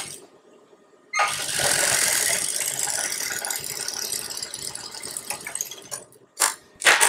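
Industrial lockstitch sewing machine running and stitching fabric. It starts abruptly about a second in and runs for about four and a half seconds, getting gradually quieter as it slows. A couple of short clicks follow near the end.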